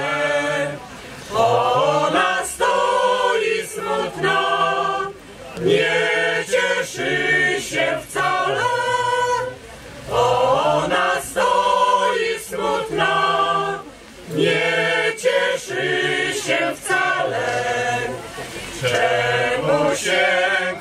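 Mixed folk choir of women and men singing a Polish folk song unaccompanied, in phrases of a few seconds broken by short pauses for breath.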